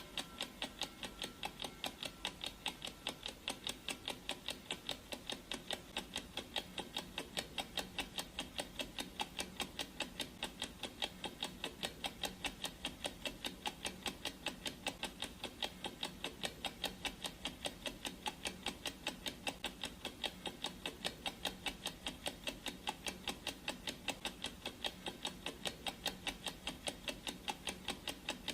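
Clock ticking sound effect: a fast, even run of dry ticks at a steady level.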